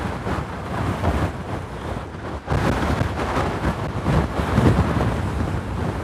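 Strong wind buffeting the microphone: a deep, gusty rumble that swells and dips irregularly.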